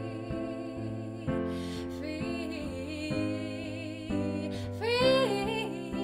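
Electronic keyboard playing sustained chords under a woman's wordless singing; her voice slides up into a high held note about five seconds in.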